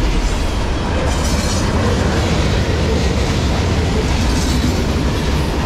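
Freight cars of a mixed manifest train (boxcars, hoppers, tank cars) rolling past at about 50 mph: a loud, steady rumble of steel wheels on the rails.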